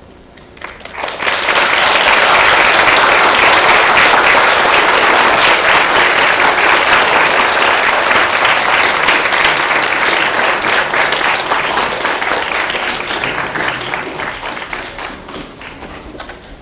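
Concert audience applauding. The applause starts about a second in, quickly swells to full, holds, and tapers off near the end.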